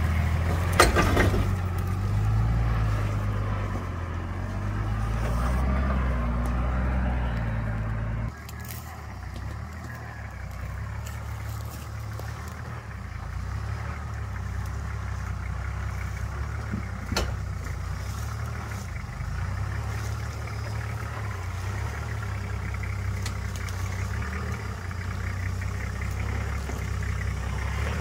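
Off-road 4x4's engine running steadily with a low rumble, with a sharp knock about a second in. The sound drops abruptly in level about eight seconds in and carries on quieter.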